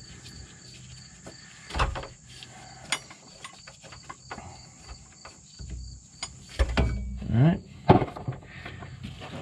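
Clicks, clunks and scrapes of a hydraulic bottle jack being let down and pulled out from under a van's rear leaf spring, with a few louder knocks and a short sliding sound about seven to eight seconds in. A steady high pulsing tone sits underneath.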